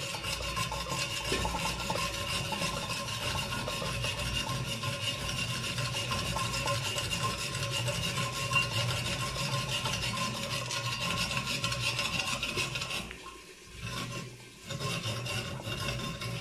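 Saladmaster hand-cranked food processor shredding a carrot through its number 3 cutting cone: a continuous metallic rasping with a steady tone running through it. It stops briefly about thirteen seconds in, then starts again.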